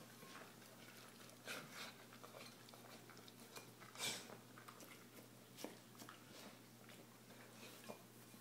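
Dog in a mesh muzzle eating out of a stainless steel bowl: faint scattered clicks and scrapes of the muzzle and mouth against the metal bowl, the loudest about four seconds in.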